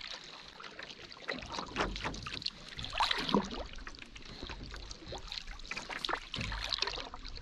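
Canoe being paddled: the paddle dipping and pulling through the water, with water trickling and dripping off the blade between strokes.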